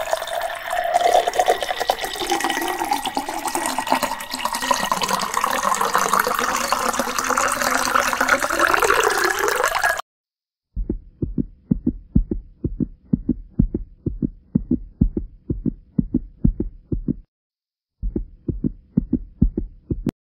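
Pouring or running water for about ten seconds, cutting off suddenly. Then a steady rhythm of low double thumps like a heartbeat, about one and a half a second, pausing briefly near the end.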